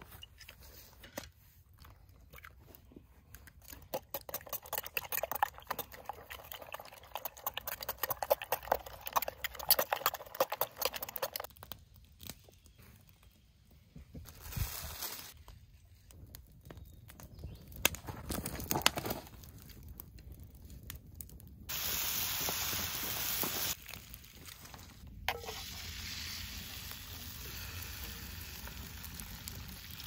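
Camp breakfast being cooked: food crackling and sizzling in a pan, with stirring and handling noises, and a steady hiss for about two seconds past the middle.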